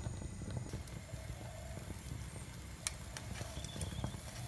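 Metal tongs clicking against a wire grill rack a few times, about three seconds in, while chilies and shallots char on it, over a low steady rumble.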